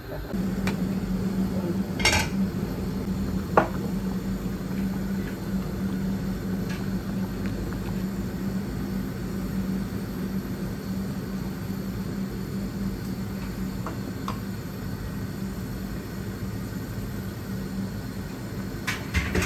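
Wooden spoon stirring a pot of simmering curry, with a few sharp knocks of the spoon against the metal pot, clearest about two and three and a half seconds in and again at the end, over a steady low hum.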